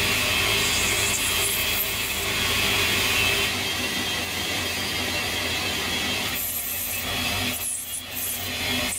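Metal lathe running while its cutting tool turns down a spinning brass bar: a steady scraping hiss of the cut over the hum of the lathe motor.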